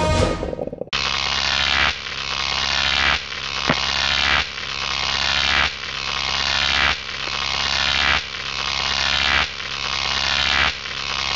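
Experimental electronic music: a looped noisy swell that builds and cuts off sharply about every one and a quarter seconds, over a steady low drone. It starts about a second in, as a busier passage fades out.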